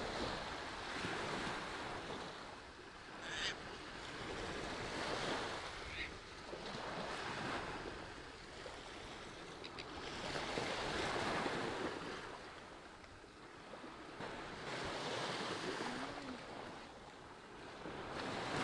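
Small waves breaking and washing up a sandy beach, the surf swelling and fading every few seconds.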